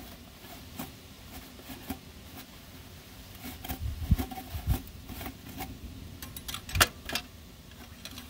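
Scattered light clicks and taps with a few soft thumps from hands handling the dipstick while the freshly added oil's level is checked; one sharper click comes late on.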